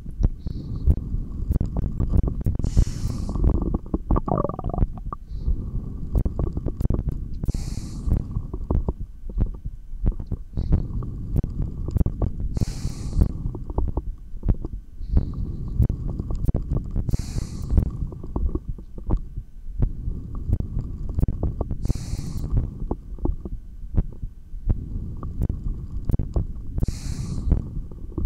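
Body sounds through a stethoscope: regular breathing, a hissing breath about every five seconds, over a continuous low rumble from the chest piece. A wavering stomach growl comes about four seconds in.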